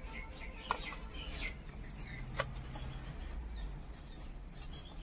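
A steel spoon scooping cream off set curd and clinking against a steel plate: a few soft clicks and scrapes. Birds chirp faintly in the background.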